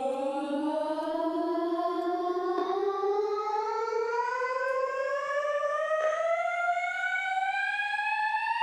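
Long vocal drone sample played from a sampler in repeat and textures mode, its pitch rising steadily as one continuous tone with no LFO wobble on it. It sounds almost like a police siren.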